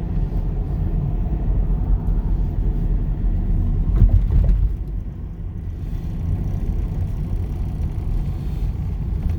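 Steady low road and engine rumble of a van driving, heard from inside the cab, swelling briefly about four seconds in.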